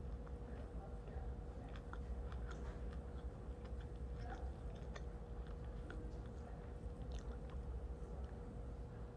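A person chewing a mouthful of bread with their mouth closed, giving small scattered crunchy clicks. Underneath is a steady low hum.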